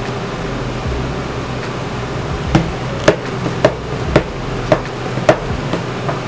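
A utensil knocking against a mixing bowl as thick chickpea-flour batter is stirred: about six sharp clacks, roughly two a second, starting about two and a half seconds in, over a steady low hum.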